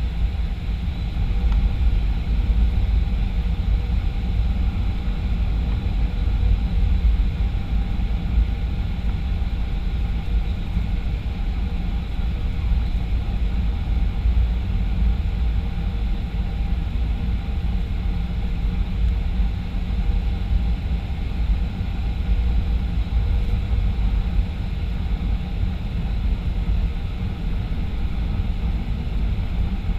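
Boeing 737-500 in flight, heard from inside the cabin: a steady rumble of CFM56 engines and airflow, with a few faint steady tones above it.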